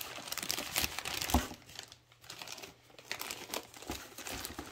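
Clear plastic bag crinkling as a router wrapped in it is handled and lifted in its box, with a single knock about a second and a half in. The crinkling eases off briefly in the middle and picks up again.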